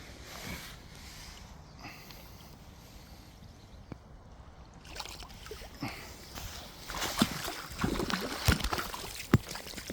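Water sloshing and lapping. From about halfway through come scattered sharp knocks and clicks.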